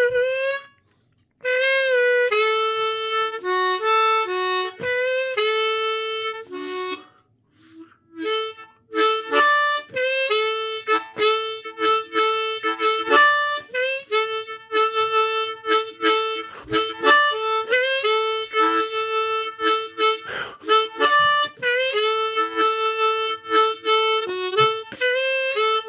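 Suzuki Manji diatonic harmonica being played: a run of single notes and chords, some notes bent, with a short pause about seven seconds in before the playing picks up again.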